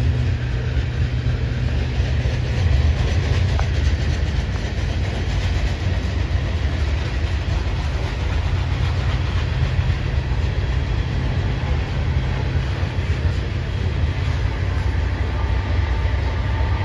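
Train running along the rails with a steady low rumble and some wheel clatter. A faint high whine comes in near the end.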